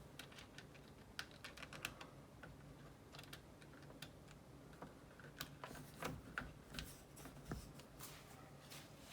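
Faint, irregular light clicks and taps, dozens of them at uneven spacing, over a low steady hum.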